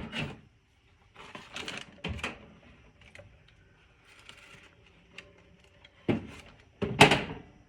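Handling noise from taking a guitar apart: metal parts and tools clicking and clattering against the guitar and bench, with two sharper knocks near the end.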